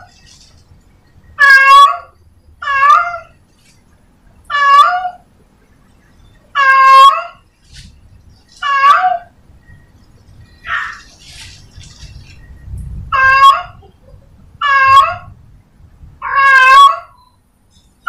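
A cat meowing over and over: about nine short, loud meows, one every second or two, each rising and then falling in pitch.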